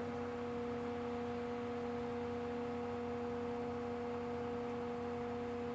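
Excavator running at a steady speed, heard as an even pitched drone from the engine and hydraulic pump with no change in pitch or level.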